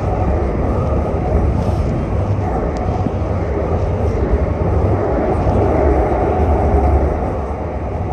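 Steady low rumble of a light rail train running, heard from inside the passenger car, swelling a little and easing off near the end.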